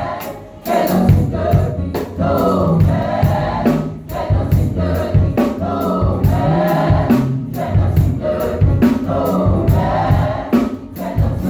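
Gospel vocal group singing in harmony over a steady percussive beat, with short dips in the sound about half a second in and shortly before the end.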